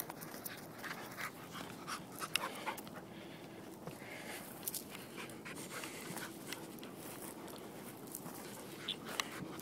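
A dog panting, with the irregular crunch and crackle of footsteps through dry scrub and brush.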